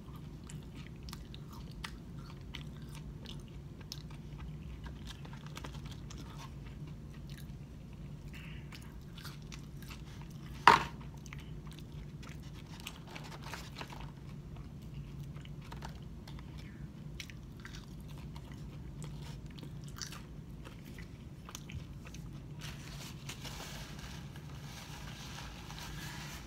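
Close-up eating of fries: chewing and crunching with small clicks, over a steady low room hum. One sharp knock about ten seconds in, and a rustle near the end.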